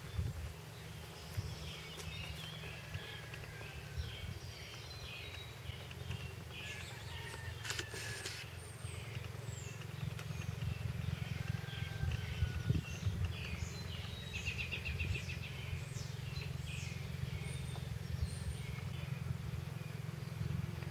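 Several birds chirping and calling, with a quick trill about two-thirds of the way through, over a steady low rumble.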